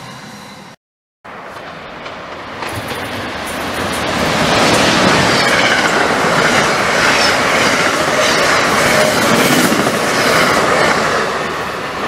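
An Amtrak train of stainless-steel Amfleet coaches passes close by at speed: a loud rush of wheels and air with rail clatter. It builds over the first few seconds and eases slightly near the end. A brief gap in the sound about a second in marks an edit.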